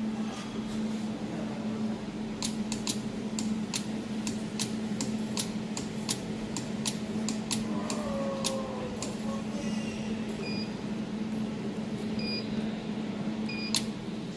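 Desktop jewelry laser welder firing single pulses at 100 A and 1 ms: sharp clicks about two a second, over a steady hum from the running machine. Three short beeps come near the end.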